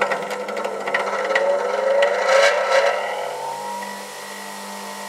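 Bench grinder switched on and spinning up to speed. Its motor whine rises in pitch over the first three seconds or so, with a few clicks in the first second and a half, then settles into a steady, quiet running hum.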